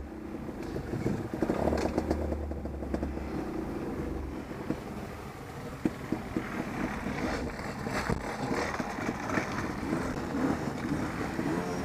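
Off-road motorcycle engine running, its pitch shifting up and down in the second half.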